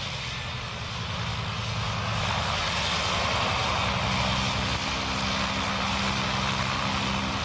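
Antonov An-2 biplane's nine-cylinder radial engine and propeller running steadily at low power as the aircraft taxis, growing slightly louder about a second in.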